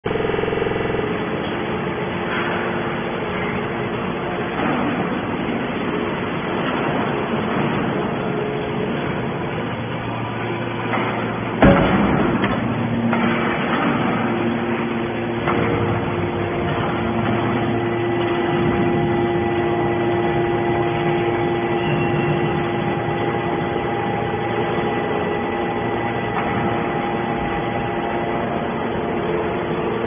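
Hydraulic scrap-metal baler running, its hydraulic power unit giving a steady hum with several held tones while the cylinders press the iron shavings. A single loud bang comes about twelve seconds in, and after it the hum settles into a steadier tone.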